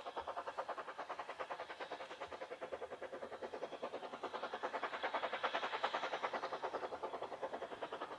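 Ffestiniog Railway narrow-gauge steam locomotive working a train, its exhaust beating in a rapid, even chuff. The beats grow louder about five seconds in, then ease a little.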